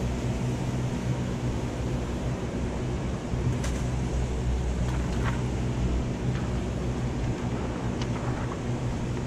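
A running fan: a steady low hum with an even rush of air, and a few faint short clicks.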